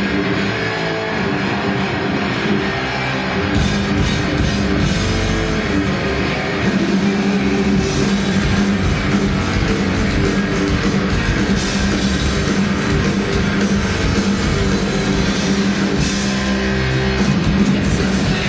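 Live heavy metal band playing an instrumental passage: distorted electric guitars through Marshall amplifiers over a drum kit. Cymbals and drums come in hard about three and a half seconds in.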